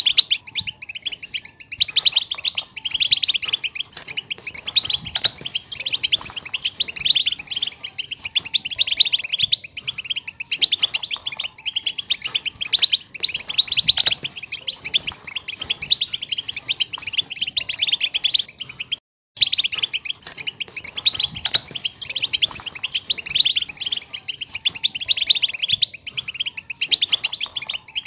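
European goldfinch chatter: a fast, unbroken stream of high twittering chirps, which cuts out for a moment about two-thirds of the way through.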